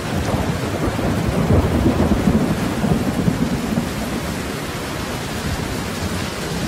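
Thunder rumbling over steady rain, a storm sound effect; the rumble is strongest in the first half, then the rain hiss carries on.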